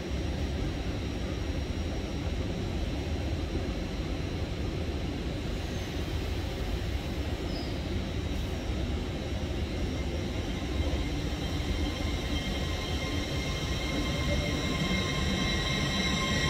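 LNER Azuma high-speed train standing with a steady low rumble, then pulling away near the end: the sound grows louder and an electric whine of several tones sets in as it starts to move.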